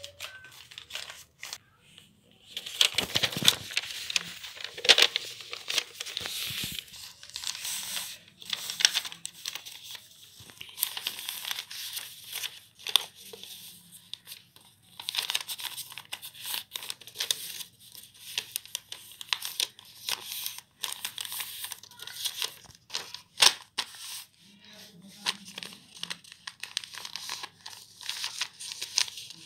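A sheet of paper being folded and creased by hand: irregular rustling and crinkling, broken by short sharp clicks.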